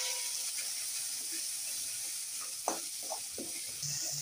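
Onion-and-spice masala sizzling as it fries in hot oil in a metal kadai, the ground spice powders just added. A spatula stirs through it, scraping against the pan a few times in the second half.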